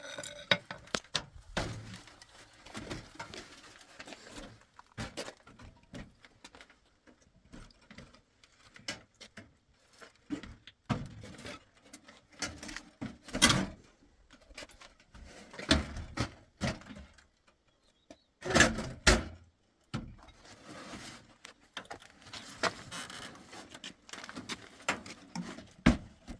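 Irregular knocks, clicks and clatter of objects being handled by hand, with a few louder knocks around the middle and two heavier thumps a little later.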